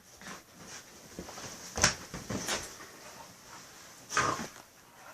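A dog making a series of short, noisy sounds at close range. The loudest is a sharp one about two seconds in, and another strong one comes a little after four seconds.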